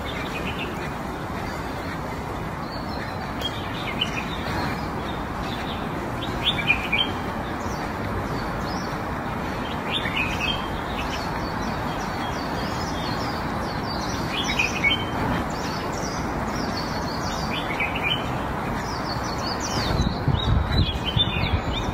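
Small birds chirping now and then over a steady rushing background noise. Near the end, a quick run of crunching snaps as a giant panda bites into a bamboo shoot.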